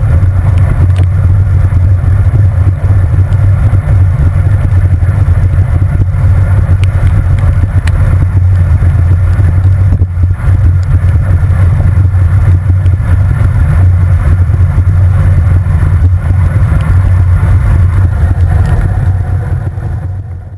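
Steady loud wind rush and wet-road tyre noise from a bicycle ride, heard on a handlebar-mounted camera in heavy rain; it fades out near the end.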